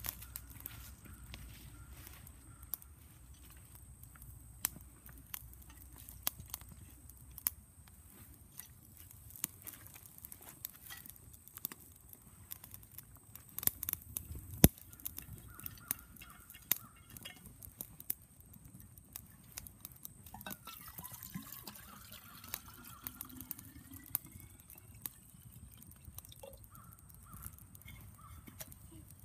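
Twigs and leaves crackling and popping as they burn in a Swiss army Volcano stove while the fire catches and flares up: scattered sharp pops, irregularly spaced, with the loudest about halfway through.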